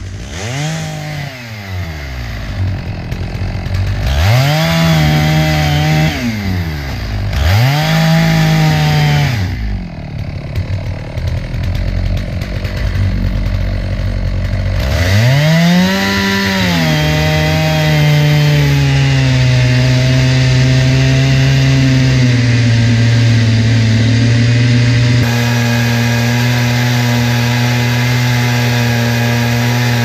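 Chainsaw in an Alaskan chainsaw mill ripping an ash log lengthwise into a board. The engine revs up and drops back a few times in the first half, then from about halfway holds a steady pitch through the cut.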